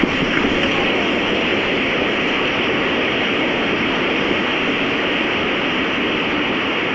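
Strong storm wind blowing, a dense, steady rushing noise with no break.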